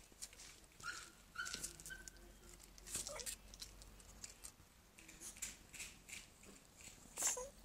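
Small pet animal giving short, high, squeaky whines about a second in and a louder call near the end, over scattered light taps and scuffs of footsteps on paving slabs.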